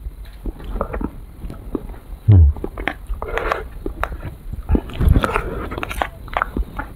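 Close-miked eating sounds of ice cream taken from a spoon: wet lip smacks and mouth clicks, with the metal spoon scraping and tapping the plastic cup. A dull low thump about two seconds in is the loudest moment.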